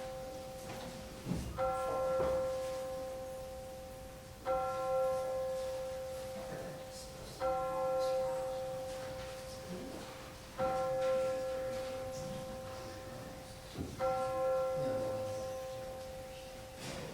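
A single church bell tolling, struck five times about three seconds apart, each stroke ringing on the same note and fading before the next.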